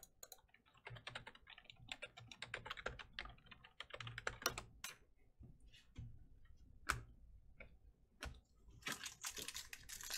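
Trading cards being flipped and slid against one another in the hands, a rapid run of small clicks and snaps, then a few single snaps. Near the end a card pack's wrapper is torn open, crinkling.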